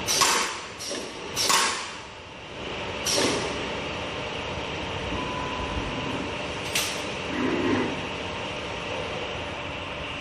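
Short hisses of compressed air from the storage-beam welding machine's pneumatic clamp cylinders, five in all, most of them in the first few seconds, over a steady machine hum with a constant high whine.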